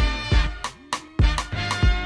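Upbeat background music with a steady beat, deep bass hits and held pitched notes over it.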